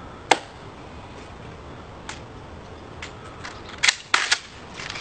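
Sharp metallic clicks and slaps of rifles being handled in an inspection drill: one loud click about a third of a second in, a fainter one near two seconds, and three more close together around four seconds in.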